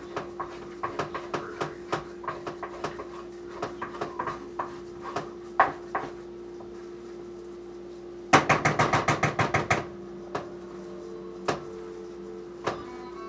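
Kitchen knife chopping on a cutting board: scattered knocks, then a quick run of about fifteen chops in the middle, then a few single taps, over a steady low hum.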